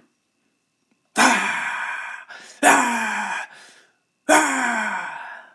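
A man lets out three loud, breathy sighs. Each is about a second long and falls in pitch: sounds of exhaustion after exercise.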